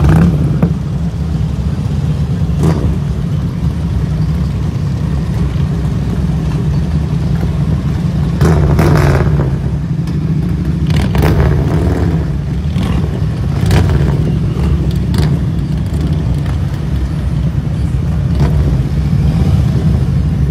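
A procession of heavy touring motorcycles riding past one after another: a steady, deep engine rumble, with several louder swells partway through as individual bikes pass close.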